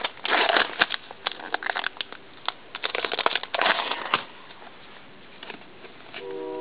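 Foil trading-card booster pack wrapper crinkling and crackling as it is torn open, dense for the first four seconds, then quieter handling of the cards. A steady pitched tone comes in near the end.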